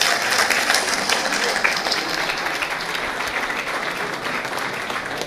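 Audience applauding: a dense patter of many hands clapping, easing off slightly near the end.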